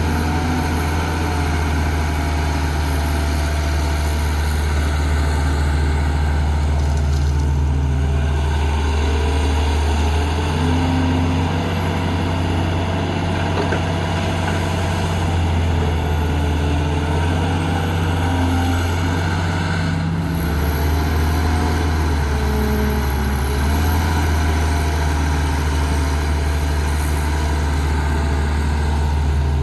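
Heavy diesel machinery engine running steadily with a low hum, its engine note stepping up and down a few times.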